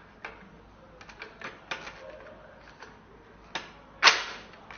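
Light clicks and knocks of long screws being pushed through the holes of a vacuum docking stand's mounting plates and base, with a louder sharp clack about four seconds in as a part is set down or knocked.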